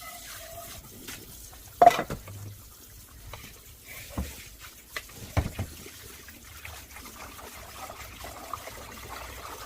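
Water trickling in a kitchen sink, with a few knocks of things being handled; the loudest is a sharp clatter about two seconds in.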